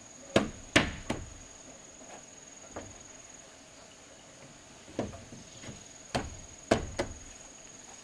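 A series of sharp knocks or strikes at irregular intervals, about eight in all, some in quick pairs, over a steady faint high-pitched whine.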